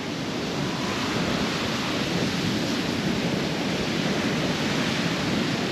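Steady rushing noise of wind and breaking surf along the shore, with no distinct events.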